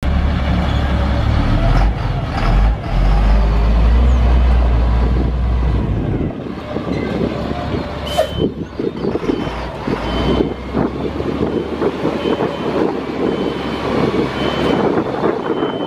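Sterling L-Line dump truck's Caterpillar 3126 inline-six diesel running, with a heavy low rumble for about six seconds. The deep rumble then falls away and a coarser rattling sound takes over. From about halfway a short high-pitched warning beep sounds every second or so, like a backup alarm.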